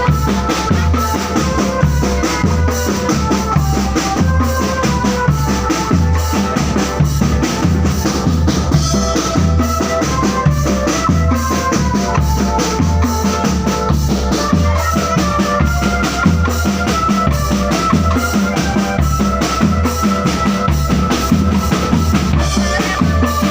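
Marching drum band playing: bass drums keep a steady beat under fast snare drumming, with a melody line carried over the top.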